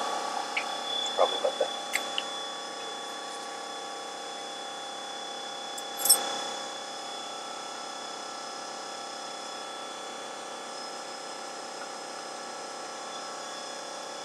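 A steady mechanical hum with several even tones runs throughout. A few light clicks of tools on metal come in the first two seconds, and one short, loud noisy burst comes about six seconds in.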